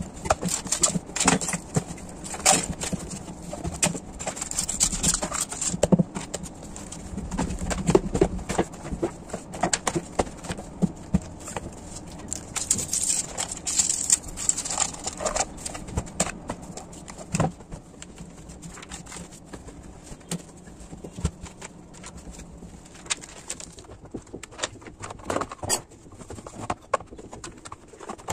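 Books, notebooks and small objects being handled and set down in a wooden drawer and a plastic tray: irregular knocks, taps and paper rustles.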